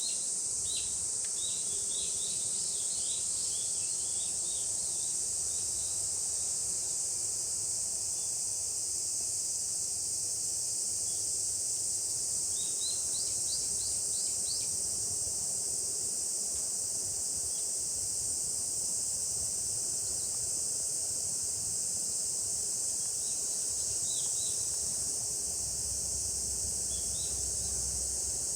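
A chorus of summer cicadas making a steady, high-pitched shrill buzz that never lets up. Short chirps come through in a few clusters: near the start, about halfway, and again near the end.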